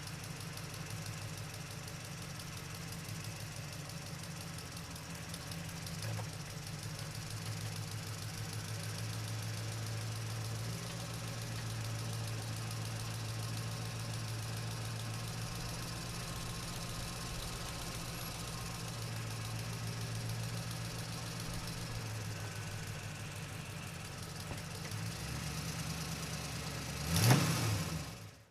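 Truck engine running steadily at low revs, its deep note shifting a little a few times. Near the end comes a short, loud burst with a quick rise in engine pitch, and then the sound cuts off suddenly.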